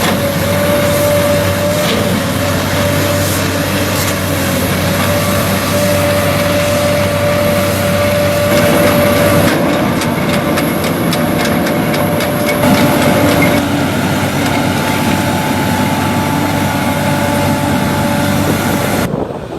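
Amphibious excavator's diesel engine running steadily under load, with a steady high whine over it and a run of quick clicks about halfway through.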